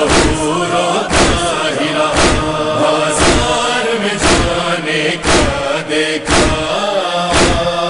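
Chanted vocal line of a nawha (Urdu lament), sung without clear words between verses, over a steady beat about once a second.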